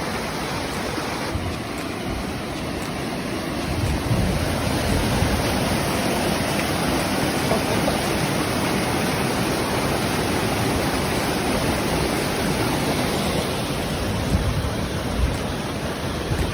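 Waterfall rushing: a steady, dense hiss of falling water that gets a little louder about four seconds in.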